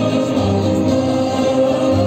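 Folk-instrument orchestra playing with a choir singing, holding steady sustained chords.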